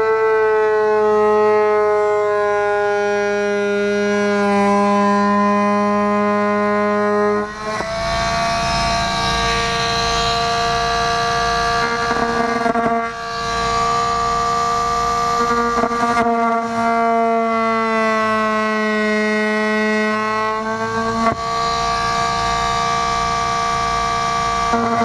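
Oscillating multi-tool with a plunge-cut blade running under load as it cuts into a wood-grain wall panel: a steady high-pitched whine whose pitch drifts and shifts several times as the blade bites and eases, with brief dips about 7, 13, 16 and 21 seconds in.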